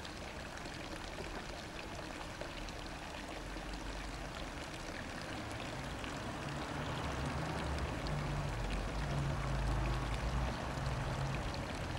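Steady rushing outdoor background noise, with a low rumble and faint hum that build over the second half.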